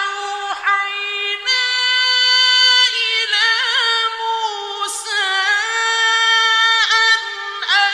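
A male Quran reciter chanting in the melodic mujawwad style, unaccompanied. His high voice holds long sustained notes, with wavering trills in the middle and short swooping glides between phrases.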